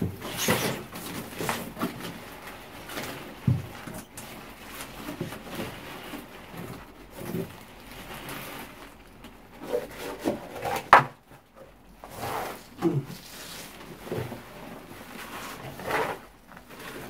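Scattered rustling and scraping as bunches of green onion stalks are handled and a plastic scoop works soil into a styrofoam box, with one sharp knock about eleven seconds in.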